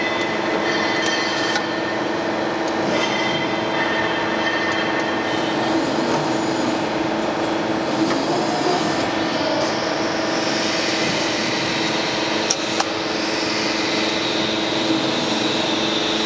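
Press brake machinery running with a steady hum made of several held tones while a sheet-metal strip is bent. A hiss swells up near the middle, and there is one sharp click about twelve and a half seconds in.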